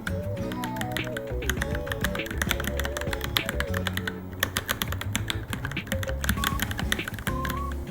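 Fast, irregular typing on a Varmilo Minilo mechanical keyboard, a stream of key clicks with a brief lull about four seconds in, over background music.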